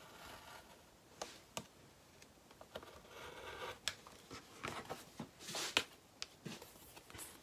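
Rotary cutter rolling through two layers of lining fabric on a cutting mat, with a few light clicks of the acrylic ruler and cutter being handled and a short rustle about five and a half seconds in.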